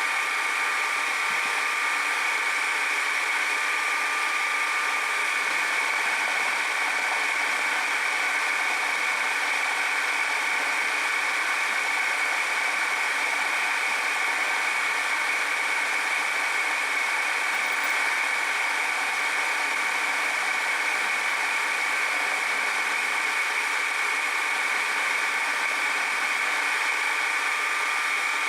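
Metal shaper running steadily on the last cutting pass of a gear repair, a constant motor-and-drive hum with a steady whine. It dies away within about a second at the very end.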